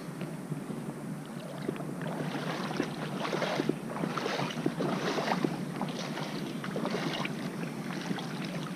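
Shallow water sloshing and splashing in uneven bursts, busiest in the middle, with wind on the microphone.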